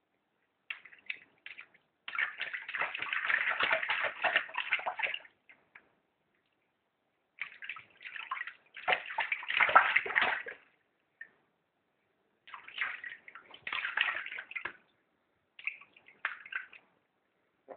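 Bath water splashing and sloshing in a tub as someone is washed, in several bursts a few seconds long with short pauses between them.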